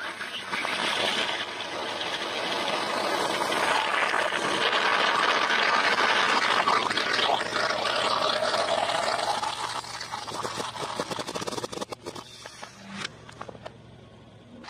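Plastic bottles filled with liquid and gel water beads being crushed under a slowly rolling car tyre: a long rushing spray of liquid and air that fades after several seconds, then a few sharp cracks of plastic near the end.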